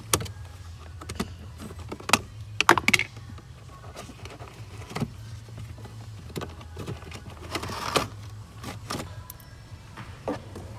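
Plastic clicks, knocks and a brief scrape as the clipped cover of the cabin air filter housing behind the glovebox is unclipped and pulled off, over a steady low hum.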